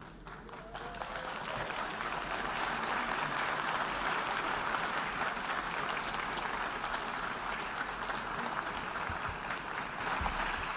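Applause from the assembled delegates, swelling over the first two seconds and then holding steady.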